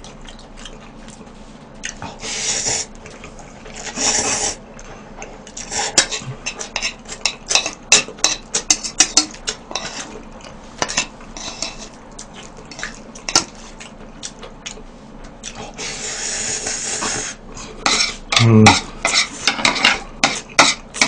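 Chopsticks and metal tongs clicking and scraping against a bowl and a metal tray of spicy mixed noodles, with three bursts of noodle slurping, the longest near the end.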